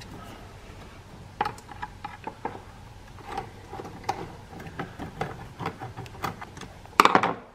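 Jeep Patriot's rubber air intake hose being twisted and pulled off its fitting by hand: scattered light clicks, creaks and plastic knocks, with a louder scrape near the end.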